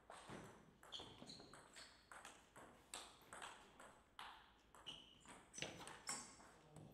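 Table tennis rally: a plastic ball clicking back and forth off the players' bats and bouncing on the table in an irregular run of sharp ticks.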